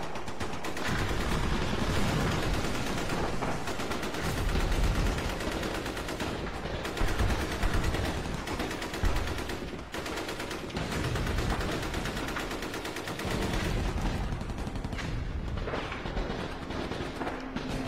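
Rapid, sustained automatic gunfire, shots following each other almost without pause, with a few louder shots near the middle.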